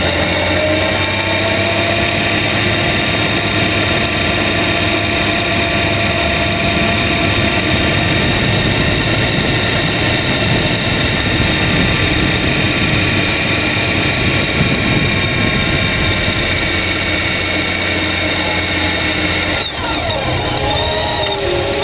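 Motorcycle running under way, heard from low beside the front wheel: engine and drivetrain noise with a steady high whine, rising a little in pitch in the first second and falling away about twenty seconds in as the bike slows.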